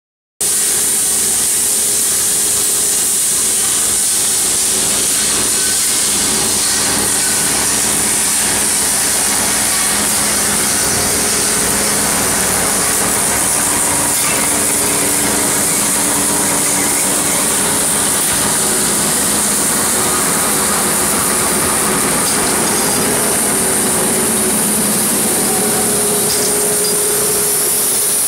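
GT6/12 steel wire straightening and cutting machine running, drawing wire off the coil through its straightening unit: a loud, steady high-pitched hiss over a low machine hum.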